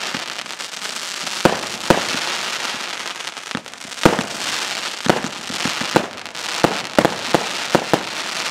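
Skallagrímur consumer fireworks cake firing its shells: a continuous hiss and crackle from the rising tails and bursts, broken by about ten sharp bangs that come faster in the second half.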